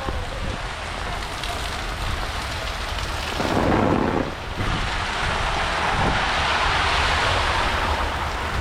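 Heavy rain pouring in a thunderstorm, with a low rumble underneath. About three and a half seconds in there is a brief louder burst, and after it the rain hiss grows louder.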